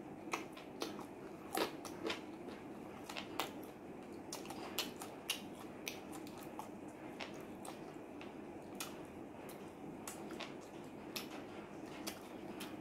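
Close-miked chewing of fried chicken: irregular sharp wet clicks and smacks from the mouth, the loudest in the first half, over a steady faint background hum.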